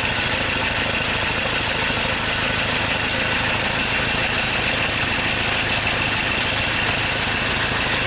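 2013 Ford Ranger's diesel engine idling, a loud, steady running noise with a faint high whine over it; the mechanic takes the engine to be misfiring on a cylinder.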